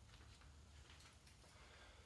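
Faint steady hum of the 2007 Audi S4's 4.2 V8 running, with light irregular ticking. This is the tick that the owner is trying to trace after a full timing chain job and a new clutch and flywheel.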